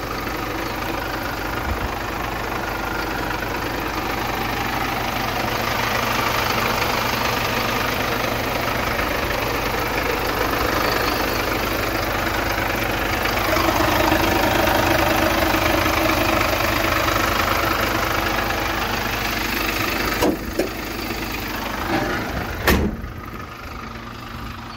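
Mercedes Sprinter 513's diesel engine running steadily, with a few sharp clicks near the end, after which the sound drops off.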